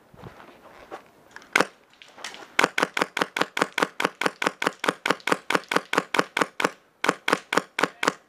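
Airsoft electric gun (AEG) firing: one shot about a second and a half in, then a steady string of rapid semi-auto shots at about five a second, with a brief pause near the end.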